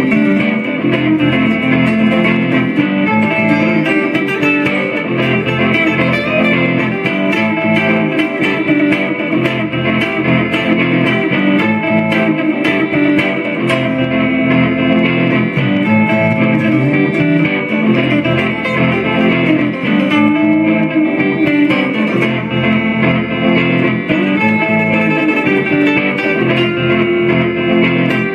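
Les Paul-style electric guitar played through an amplifier, a continuous run of notes without a break.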